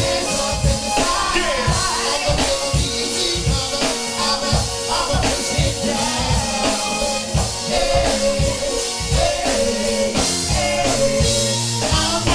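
Background music with a steady drum beat and singing.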